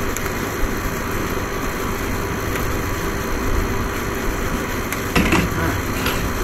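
Steady mechanical hum, like a motor running, with a few faint steady tones in it. About five seconds in comes a short scraping rustle.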